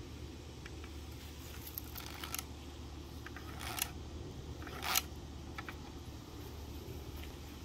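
A few short scratchy strokes, the loudest about five seconds in: a pencil drawing a cut mark along a plastic speed square on the end of a stack of faux-wood vinyl blind slats, with the square being handled. A steady low hum runs underneath.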